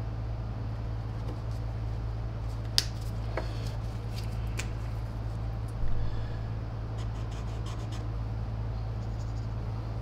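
Light clicks and scratches of a marker pen being handled and used on a circuit board's wiring, the sharpest click about three seconds in, over a steady low hum.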